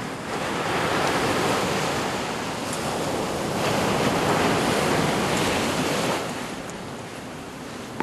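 Small ocean waves breaking and washing up a sandy beach. The surf swells twice, then eases off near the end.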